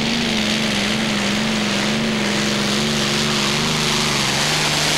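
Packard V12 marine engine of a pulling tractor running flat out under heavy load as it drags the sledge, its note wavering and sagging lower near the end as the load builds and the tractor slows short of a full pull.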